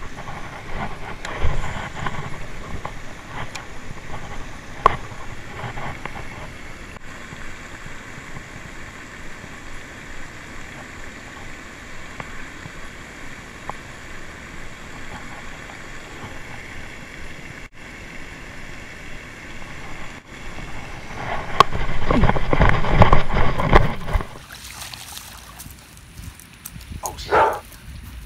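Steady splashing of a pond's spray fountain mixed with wind on the microphone. About 22 seconds in, a louder rush of noise lasts a couple of seconds.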